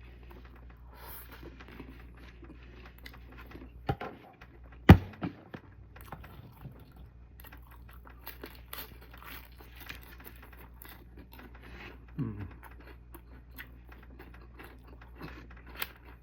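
Close-up eating sounds: chewing, with scattered clinks and scrapes of utensils against a bowl. A sharp knock comes about five seconds in.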